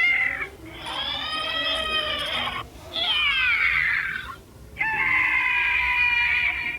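Three high-pitched cartoon character cries, one after another with short gaps: the first swells and fades, the second slides down in pitch, the third is held steady.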